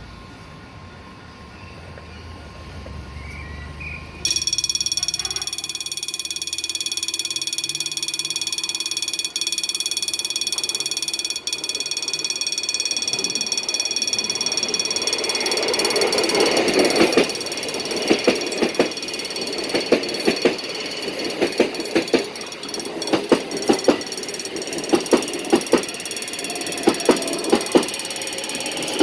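A passing train: a low rumble, then a sudden steady high whine from about four seconds in, then wheels clacking over rail joints in a steady rhythm through the second half.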